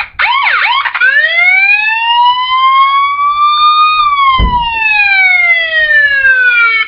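Electronic police-style siren, a rapid yelp that switches about a second in to a slow wail, rising for about three seconds and then falling, and cutting off suddenly. A brief low thump comes about halfway through.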